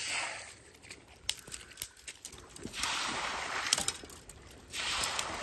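Brushwood broom sweeping through wet mud and shallow water in a few long strokes, after a scatter of sharp clicks.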